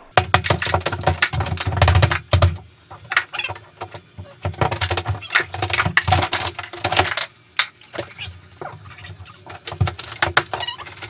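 A hammer knocking into a plaster and drywall wall and breaking it away, with chunks cracking, crumbling and falling. A fast run of heavy knocks in the first two seconds or so, then scattered smaller cracks and clatters that thin out near the end.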